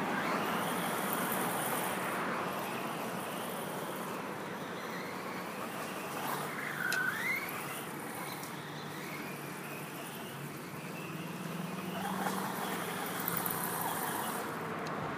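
Distant Traxxas Slash 4x4's brushless electric motor (Castle Creations Mamba Max Pro 1415, 2400kv) whining as the truck drives over grass. The whine dips and climbs again in pitch about seven seconds in, over a steady hiss.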